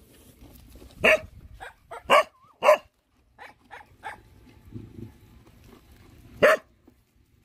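Dogs barking in short, sharp yaps: three loud barks in the first three seconds and one more near the end, with fainter yips in between.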